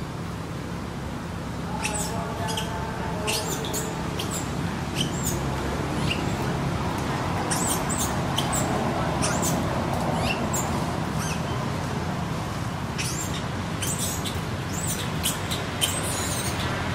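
A young macaque giving many short, high-pitched squeaks and chirps in quick runs, with brief lulls, over a steady low background rumble.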